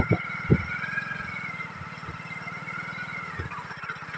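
Vehicle engine running steadily at low speed, pacing the runners, with a faint high whine over it and a few dull thumps in the first second.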